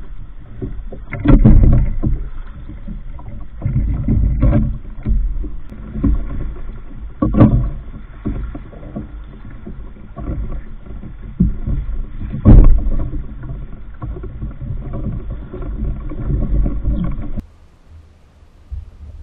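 Choppy water slapping and sloshing against a plastic kayak hull in uneven surges, with a few louder knocks. It stops abruptly about two seconds before the end.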